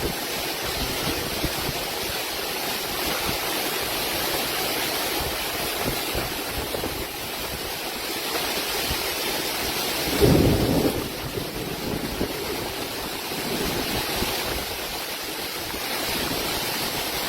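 Storm rain and strong wind making a steady rushing noise, with a louder low rumble about ten seconds in that lasts under a second.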